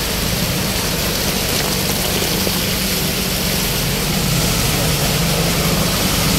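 Auto-rickshaw engine running steadily under a dense, even hiss of heavy rain and wet road, heard from inside the rickshaw.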